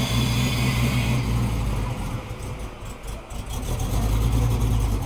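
A car engine running with a low, steady rumble that weakens around the middle and builds back up.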